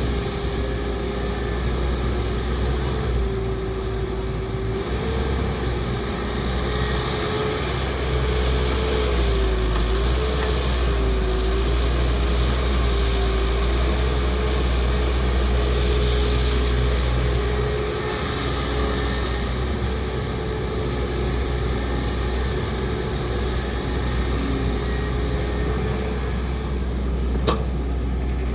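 Excavator's diesel engine running steadily with a low rumble and a wavering whine that rises and falls with the work. There is one sharp knock near the end.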